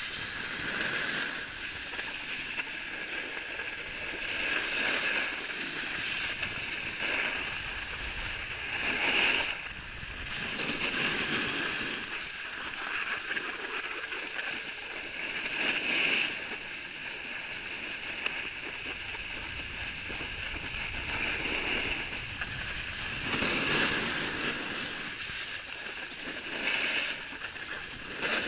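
Snow hissing and scraping under a rider sliding down a groomed slope, swelling every few seconds as the edges dig in on turns.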